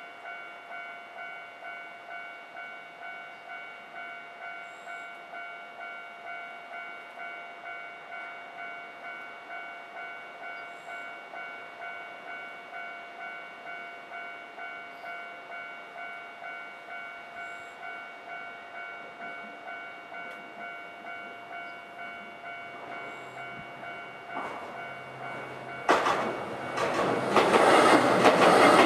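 Japanese level-crossing warning bell ringing steadily, a little under two strokes a second. About 24 s in a Nankai Kada Line train approaches, and from about 26 s it passes over the crossing with loud wheel and rail noise that drowns the bell.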